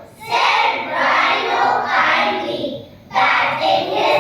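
A group of children reciting a poem together in unison, in a sing-song chant. There are two long phrases, with a short break about three seconds in.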